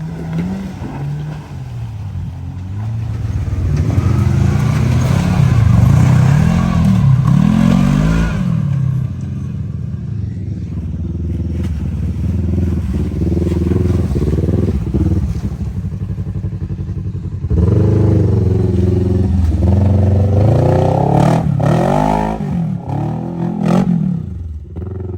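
Side-by-side UTV engine revving hard under full throttle in repeated surges, its pitch climbing and falling. The loudest pushes come about four to eight seconds in and again about eighteen to twenty-two seconds in.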